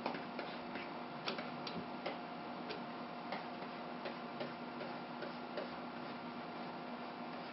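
Light, irregular clicks of a stylus tip tapping down on a graphics tablet's pen display as sketch strokes are drawn, about one or two a second, over a steady low electrical hum.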